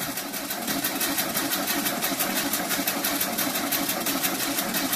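Air-cooled flat-four engine of a 36 hp VW Beetle, straight-piped pea shooter exhaust, running steadily on its manual choke just after a cold start. It gives a fast, even, slightly rattly exhaust pulse.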